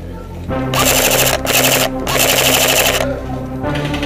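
Airsoft rifle firing several short bursts of rapid full-auto shots, with background music underneath.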